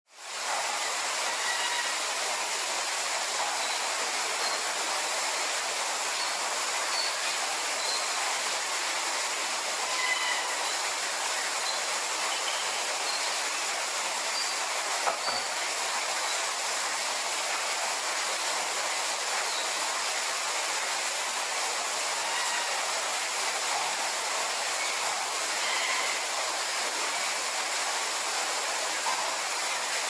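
Steady rushing hiss with faint, brief bird chirps scattered through it and a single sharp click about halfway.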